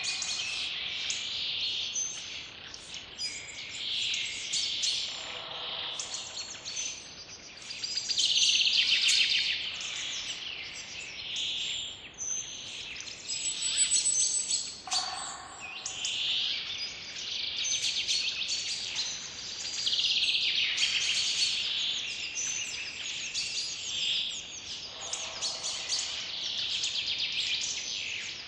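Many birds singing and chirping at once in a dense forest chorus, with a lower-pitched call now and then.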